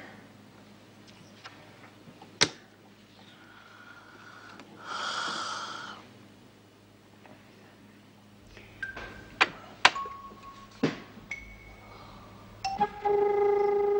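A few sharp slaps and clicks of playing cards being laid down on a table: one about two seconds in and a quick cluster around nine to eleven seconds, with a short noisy swell around five seconds. Near the end, a loud music chord of steady held notes starts as the hand is shown.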